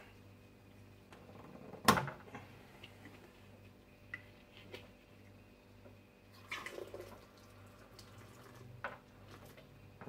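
Star San sanitizer being run out of a beer line through a picnic tap into a plastic jug under 14 psi: liquid spurting and dripping, with a sharp click about two seconds in and a short spurt about six and a half seconds in.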